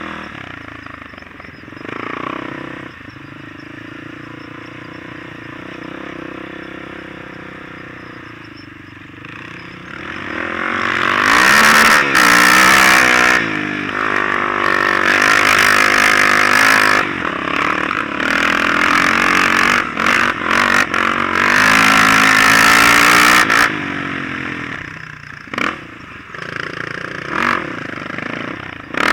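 Off-road vehicle engine running, then revving hard from about a third of the way in, its pitch rising and falling for about twelve seconds as it pulls through dune sand, before easing off near the end.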